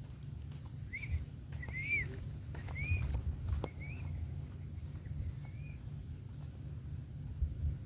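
A small bird giving a handful of short chirps that rise and fall, roughly one a second, over a faint steady high whine.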